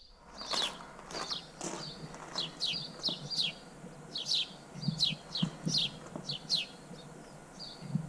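Small birds chirping: a steady string of short, falling chirps, several a second, with a few faint low knocks around the middle.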